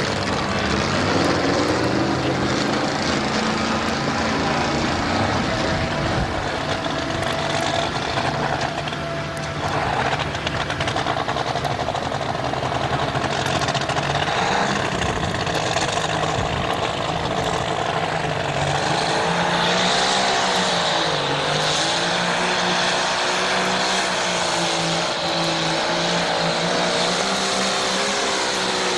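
Modified pulling tractor's engine running hard under load as it drags a weight-transfer sled down the track, a steady, loud engine note whose pitch wavers and dips about three-quarters of the way through.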